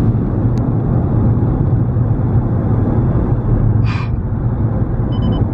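Steady low rumble of a moving vehicle, with one short, higher-pitched sound about four seconds in.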